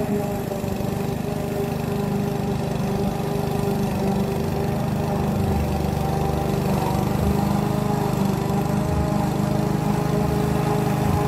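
Duricut 820 push lawn mower's 159cc petrol engine running steadily under load as it is pushed across grass, cutting. It grows a little louder toward the end as the mower comes closer.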